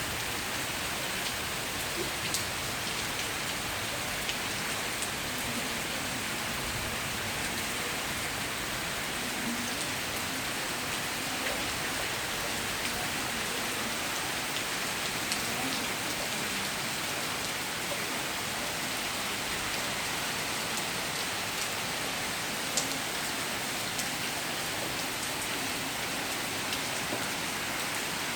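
Heavy rain falling steadily, an even dense hiss with occasional sharper ticks of single drops landing close by.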